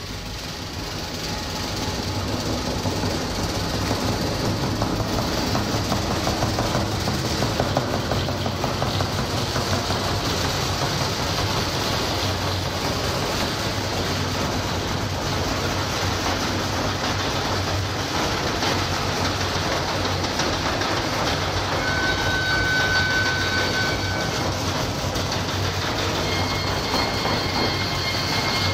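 Live percussion played as a dense, steady rumble that swells about two seconds in, with a high ringing tone a little over two-thirds through and more high tones near the end.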